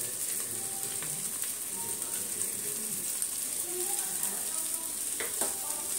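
Faint sizzling from the aluminium pressure cooker on the gas flame as white rice is layered in. A couple of light metal taps come near the end.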